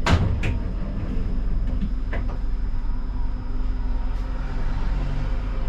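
Siemens Combino tram heard from the driver's cab: a steady low hum from the running tram, with a faint high tone above it. A few sharp clicks come right at the start and another about two seconds in.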